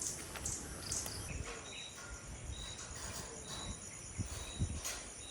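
Insects, crickets among them, buzzing in a steady high-pitched drone, with a short high chirp repeating about once a second.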